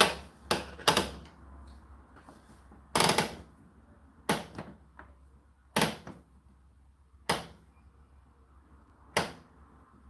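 Timer dial on an Indesit IDC8T3 condenser tumble dryer being turned by hand, giving about seven sharp clicks a second or so apart.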